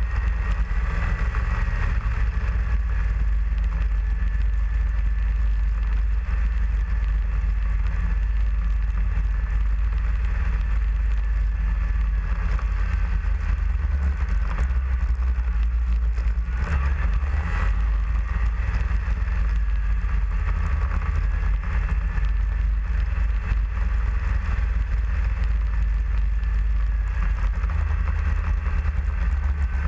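Snowmobile running steadily along a trail, with a high whine that wavers a little in pitch over a deep, steady rumble. There is a brief knock a little past halfway.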